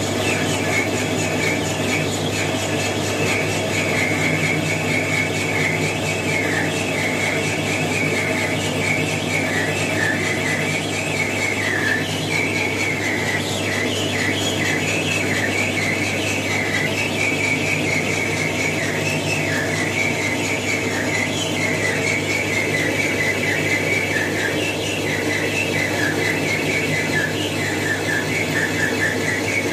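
Metal lathe turning a steel bar: the cutting tool squeals with a wavering high pitch against the spinning workpiece, over the steady hum of the lathe's motor and gearing.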